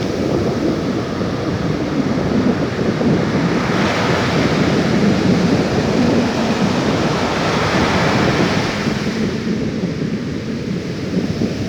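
Steady outdoor rushing noise that swells for several seconds in the middle and eases near the end.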